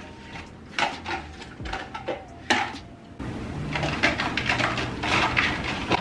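Dishes and plastic containers clattering and knocking as they are shifted about in a kitchen cabinet while a plastic bowl is searched out: a few separate knocks at first, then a denser run of clatter from about three seconds in.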